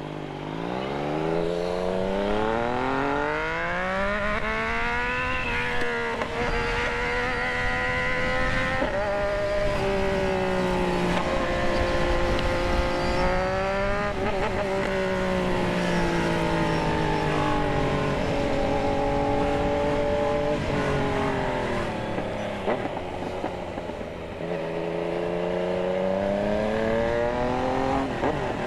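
Yamaha MT-09's inline three-cylinder engine under way, revving up through the gears with several quick drops in pitch at the shifts. It holds a steady pace for a while, eases off partway through, then accelerates again near the end.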